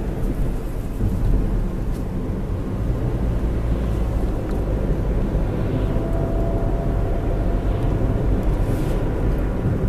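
A car driving at a steady pace: a continuous low rumble of engine and tyre noise that does not change.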